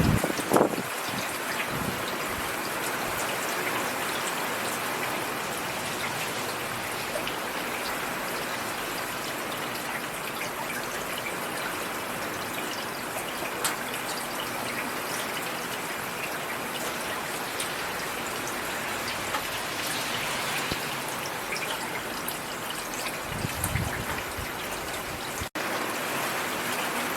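Steady rain falling, an even hiss of many drops, with a couple of brief low thuds about half a second in and again near the end.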